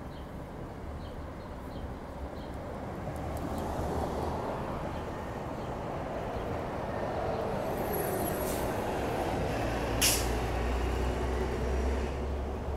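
City buses going by: engine and tyre noise build as a bus approaches, and a short, sharp air-brake hiss comes about ten seconds in. After it, the low rumble of an articulated bus's engine grows louder as the bus turns close by.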